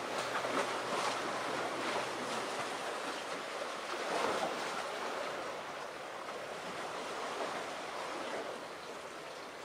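Steady wash of sea waves with wind, swelling slightly about four seconds in.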